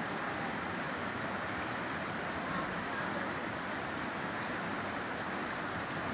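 Steady rush of flowing river water, an even hiss with no separate events.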